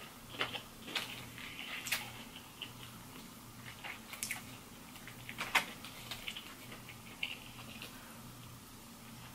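Close-up eating sounds: chewing and mouth smacks on fried chicken tender and mashed potatoes, with scattered sharp clicks and taps from a plastic fork working in a cardboard food box.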